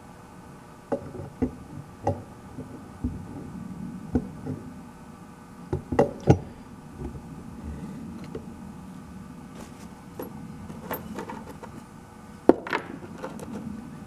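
Clicks, clinks and knocks of a cast-metal motor end bell being handled and fitted back onto the frame of an antique Century repulsion-start induction motor. The sharpest knocks come about six seconds in and again near the end.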